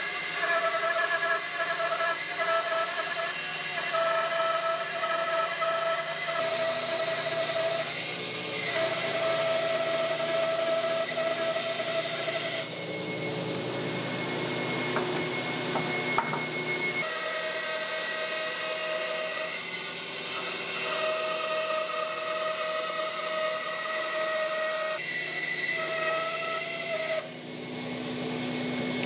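Bandsaw running and cutting a laminated hardwood blank, the blade ripping along marked lines to remove waste. A steady machine whine that drops away and returns several times through the cut.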